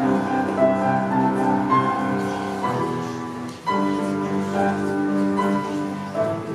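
Piano being played solo: sustained chords under a melody line. The sound thins out about three and a half seconds in, then a new chord is struck and the phrase carries on.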